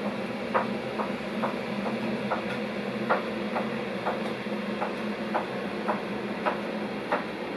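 A knife chopping on a cutting board, about two strokes a second and slightly uneven, over a steady low hum.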